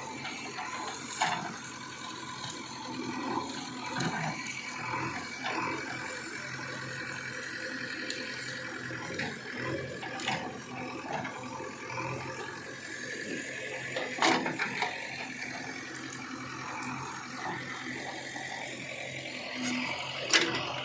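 JCB backhoe loader working: its diesel engine and hydraulics run with a steady hum and whine, broken by a few sharp knocks.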